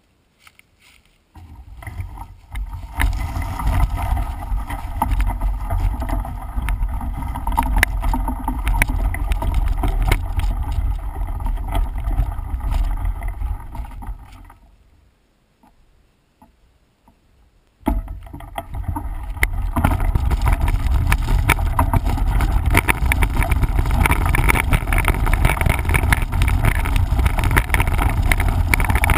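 Mountain bike riding over a rough trail: wind rumble on the microphone with a running clatter of rattles and knocks. It starts about a second in, cuts out for a few seconds in the middle, then comes back louder.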